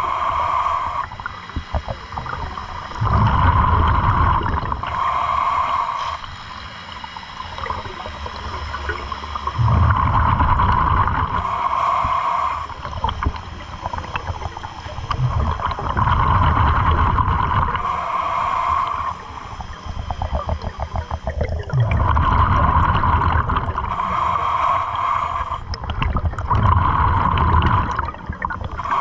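A scuba diver breathing underwater through a regulator, with a burst of exhaled bubbles about every six seconds, five or so in all.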